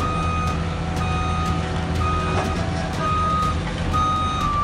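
Vehicle reversing alarm beeping steadily, about once a second, over the low steady hum of a running engine.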